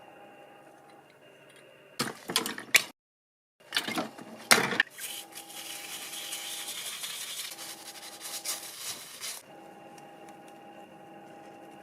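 Sharp clattering of small hard parts, broken by a brief dead-silent edit, then a steady hiss lasting about four seconds over a faint background hum.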